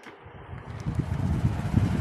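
Sang SBX12 12-inch box fan switched on with a click and spinning up, its airflow rising over the first second into a steady rush of air that buffets the microphone with uneven low rumbles.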